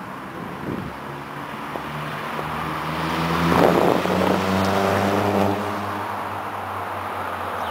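Vauxhall Astra coupe with a turbocharged four-cylinder engine and a full 2.5-inch turbo-back exhaust driving past at moderate road speed. The engine and exhaust grow louder as the car approaches, are loudest as it passes about four seconds in, and then fade slightly as it pulls away.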